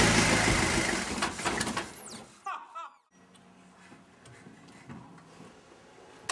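Background music fading out over about two seconds, followed by a few brief squeaky chirps and then quiet with a faint low hum and a few faint clicks.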